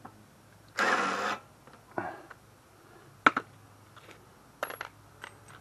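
Metal hand tools being handled while a socket is picked out: a half-second rattle of sockets about a second in, then a sharp click and a few lighter clicks of metal on metal.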